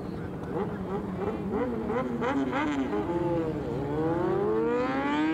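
Engine revving hard: its pitch wavers quickly up and down several times, then dips and climbs steadily for about two seconds near the end.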